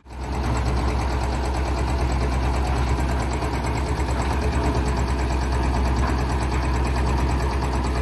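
8 HP diesel engine of a tilting concrete mixer running steadily at idle, an even low rumble with a quick, regular firing beat; the engine runs smoothly.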